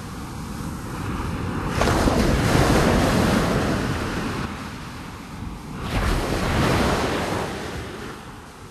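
Sea waves washing in and drawing back: a noisy surge that builds about two seconds in and slowly fades, then a second surge about six seconds in.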